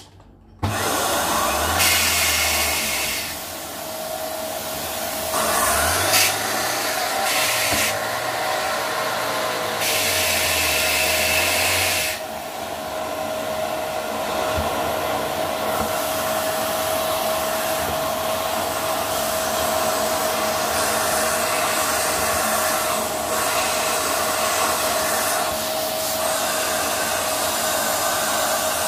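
Dyson vacuum cleaner switched on about half a second in, then running steadily with a constant high whine over an airy rush. The rush swells louder in several spells during the first twelve seconds, then settles.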